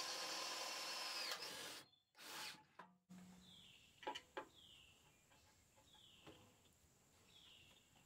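Ryobi 18-volt cordless drill with a titanium nitride bit running steadily as it bores a hole through the metal base of an RV stabilizer jack. It winds down and stops about two seconds in, and a few faint clicks follow.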